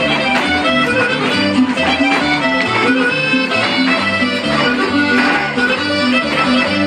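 Northern Mexican polka-style dance music, with the accordion leading over a steady alternating bass beat.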